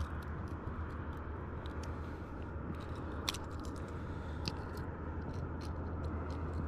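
Close-up handling noise while a treble hook is worked loose from a bass's mouth: scattered small clicks and scrapes over a steady low hum.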